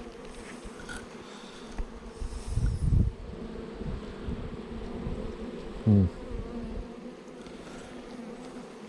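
Honeybees buzzing steadily around an open hive. Near the start there is a low bump, and about six seconds in a single bee's buzz swells briefly, bending in pitch.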